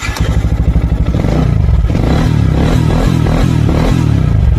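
Yamaha 155cc single-cylinder motorcycle engine running with a steady rapid beat, just after catching on its electric starter, which is powered by a homemade 3S lithium-ion battery pack.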